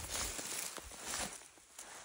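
Rustling and light scuffing of a textile motorcycle riding jacket and strapped-on gear as the wearer reaches up and moves about. It gets quieter about a second and a half in.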